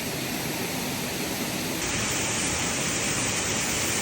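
Waterfall's falling water rushing steadily. About two seconds in it turns louder and hissier.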